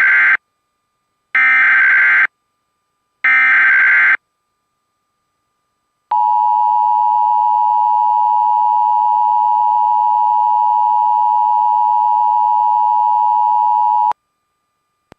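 Emergency Alert System SAME header: three bursts, each about a second long, of screechy warbling digital data tones. After a short pause comes the steady two-tone EAS attention signal, held for about eight seconds before it cuts off sharply. Together these announce an emergency alert broadcast.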